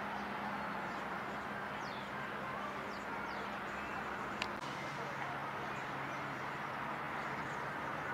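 Steady outdoor traffic rumble with a low hum that drops in pitch about halfway through, a few faint, short, high bird chirps, and a single sharp click about four and a half seconds in.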